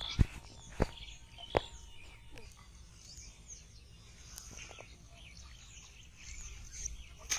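Small birds chirping repeatedly, with three sharp clicks in the first two seconds.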